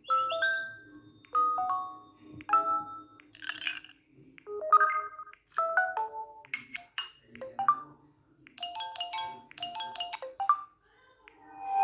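LG Bello smartphone notification tones played one after another: about ten short electronic chimes and jingles of a second or so each, one of them a brief high-pitched clattering sound.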